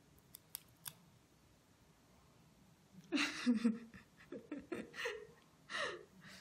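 Three sharp snips of small pet nail clippers cutting a ragdoll cat's claws within the first second. From about three seconds in, a run of short vocal sounds that is louder than the snips.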